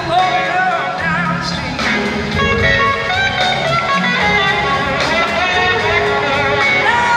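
Live blues band playing a slow blues, with an electric guitar taking a lead line of bending, gliding notes over drums, bass and keys.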